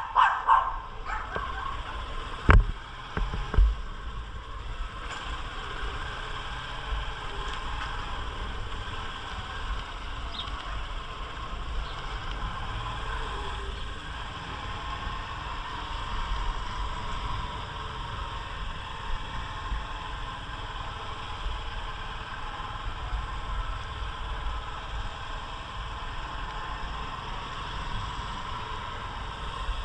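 Honda Titan 160 single-cylinder motorcycle running steadily on the move, with low wind rumble on the microphone. A dog barks a few times right at the start, and two sharp knocks come about two and a half and three and a half seconds in.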